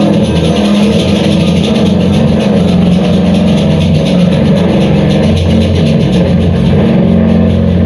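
Loud live music from a three-piece group: a dense, continuous wall of sound over held low drones, with a rapid, even pulsing in the high end.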